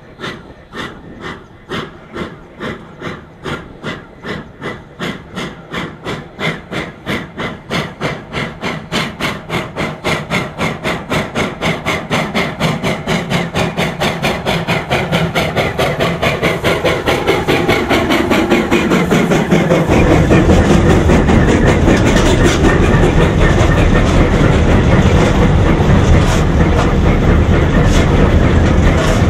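Steam locomotive No. 644 exhaust chuffing as it pulls a train away, the beats starting about two a second and quickening steadily as it gathers speed. About two-thirds of the way in, a cut to a loud, steady rumble and rattle of the locomotive running, heard from inside its cab by the firebox.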